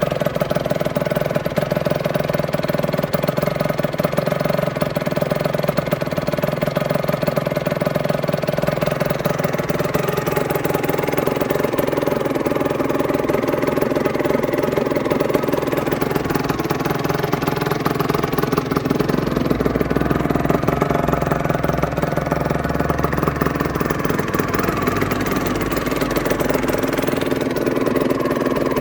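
A 2007 Aprilia RS125's single-cylinder two-stroke engine running steadily, with small shifts in its tone partway through.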